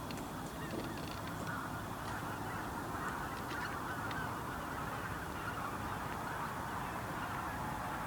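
A huge flock of Baikal teal calling all at once: a dense, steady chatter of countless overlapping calls, with no single bird standing out.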